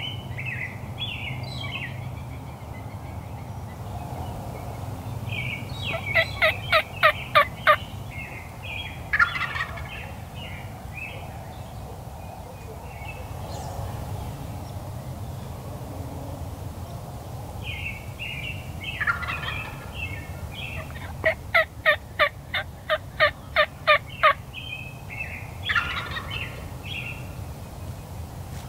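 Wild turkey gobbler gobbling: two loud, rapid rattling gobbles, one about six seconds in and a longer one about twenty-one seconds in, with softer, shorter bird calls around them.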